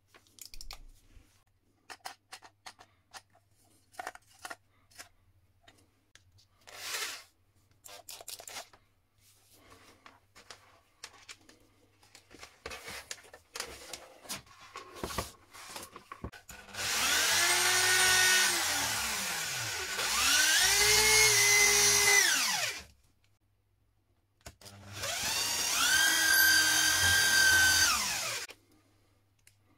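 Corded Sparky Professional electric drill run three times, its motor whine rising as it spins up, holding with small shifts in speed, then falling as it winds down. Before the runs, scattered light clicks and knocks as the drill and wooden pieces are handled.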